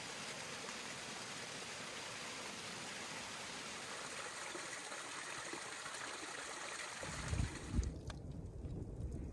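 Small waterfall running down an icy rock face: a steady rushing, trickling hiss. About seven seconds in the water sound gives way to a low rumble with a few knocks.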